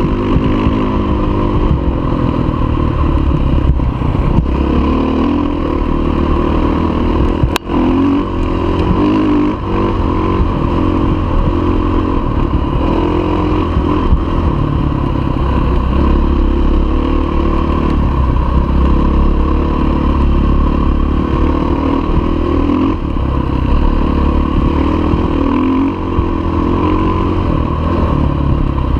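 Dirt bike engine running under way over a rough dirt trail, its pitch rising and falling with the throttle, with the clatter of the bike over bumps. A single sharp click about a third of the way in.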